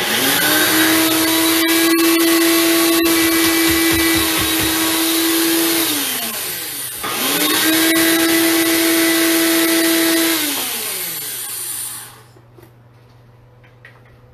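Small electric blender chopping cauliflower florets into rice, run twice. The motor spins up to a steady whine for about six seconds, with a few sharp ticks of pieces striking the blades and cup. It winds down, starts again a second later for about four more seconds, then spins down and stops.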